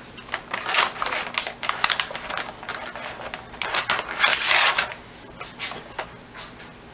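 Plastic bag crinkling and rustling as it is handled and dug into: a quick run of crackly rustles for about five seconds that then stops.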